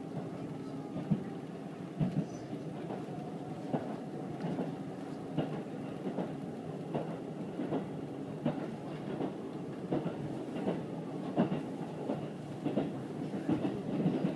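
Train running along the track, heard from inside the carriage: a steady low rumble with a rhythmic clickety-clack of wheels over rail joints, a click about every three quarters of a second.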